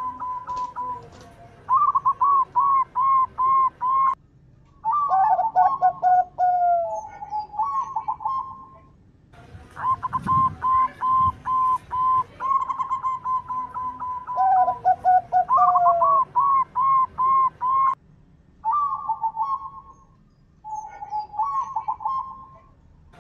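Zebra dove (perkutut) cooing: repeated phrases of short, quick notes in runs, broken by short pauses.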